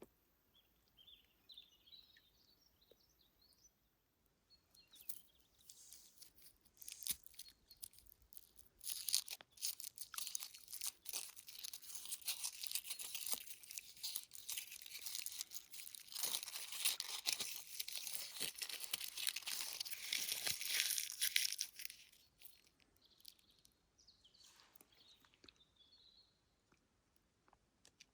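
Close rustling, crinkling and crunching that starts about five seconds in and stops a few seconds before the end, with faint small-bird chirps before and after it.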